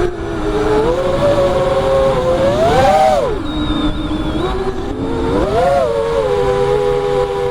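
FPV quadcopter's brushless motors and propellers whining, the pitch holding steady and then rising and falling sharply twice, about three and five and a half seconds in, as the throttle is punched and let off.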